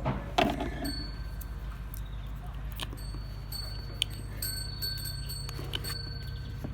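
Steady low background rumble, with a brief louder sound just after the start and a few faint sharp clicks near the middle.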